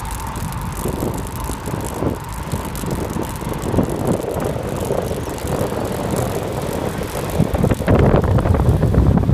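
Wind rushing over the microphone of a phone carried on a moving bicycle, with the tyres rolling on the asphalt path; the rumble grows louder near the end.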